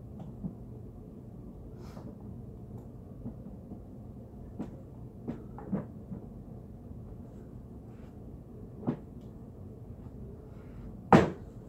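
A large collectible statue being worked onto its display base: a few light knocks and clicks of hard plastic and resin parts, then a loud sharp snap near the end as the figure snaps into place on the base.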